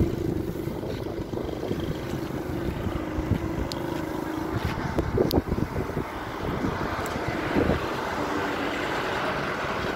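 Wind buffeting the microphone over a steady low motor-vehicle rumble, with louder gusts about five and seven and a half seconds in.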